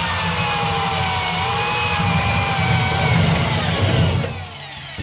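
Corded electric drill running a step drill bit through the sheet-metal firewall, a steady motor whine over a grinding cutting noise, spinning down about four seconds in as the trigger is let go.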